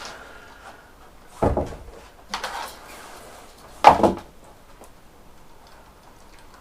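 Two thuds and a rustling scrape in between as a heavy roll of Dodo Dead Mat sound-deadening sheet is handled and rolled out; the loudest thud comes about four seconds in.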